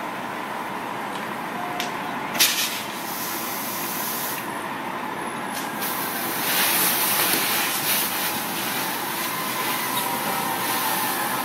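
Fire hose spraying water onto a burning car, with a loud hiss of water and steam from about six seconds in over a steady rushing noise. A single sharp pop comes about two seconds in.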